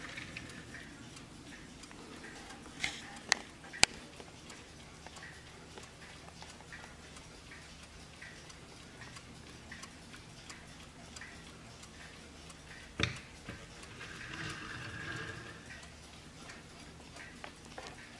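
Warmink Dutch mantel clock's mechanical movement ticking steadily, with a few sharp clicks about three seconds in and a louder knock about two-thirds of the way through as the case is handled.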